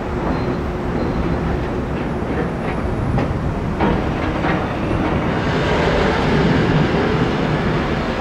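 Steady outdoor din of a large construction site and city traffic heard from high above, with a few short knocks around the middle and a swell in the noise near the end.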